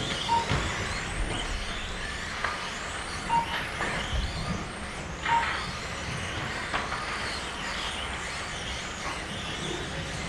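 Mini-Z 1:28-scale electric RC cars running laps on a carpet track: faint whine of the small motors and tyre noise, with a few knocks as cars hit the barriers. Three short beeps from the lap-timing system sound as cars cross the line, one near the start and two a few seconds later.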